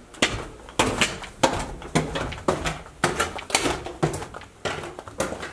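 Footsteps going down wooden stairs: a steady series of heavy steps, about two a second.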